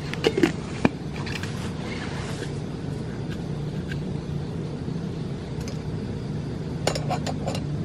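A few sharp clicks and clinks of a metal camping cup and an insulated tumbler being handled, a cluster early on and another quick run of clicks near the end, over a steady low background rumble.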